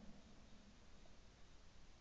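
Near silence, with the last of a shotgun shot's echo fading out right at the start.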